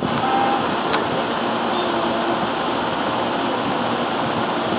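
Steady rushing noise with no clear pitch or rhythm, holding at an even level throughout.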